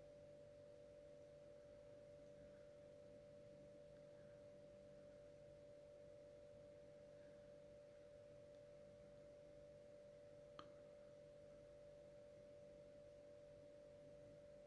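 Near silence: a faint steady hum with a constant tone in the background, and a single click about ten and a half seconds in.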